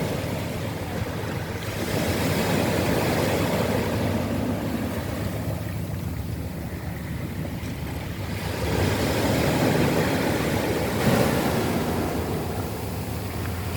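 Sea waves washing up a pebble beach, with the pebbles dragged back by the backwash. The surf swells twice, about two seconds in and again about nine seconds in.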